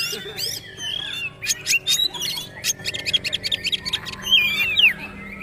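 Oriental magpie-robin (kacer) singing a rapid, varied run of sliding whistles and sharp chips and ticks, the fast chattering trotol style used as tutor song.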